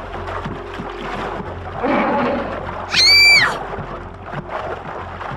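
A steady rushing noise like surf, with a brief louder murmur about two seconds in. About three seconds in comes a short, high-pitched squeal that rises and then falls, lasting about half a second.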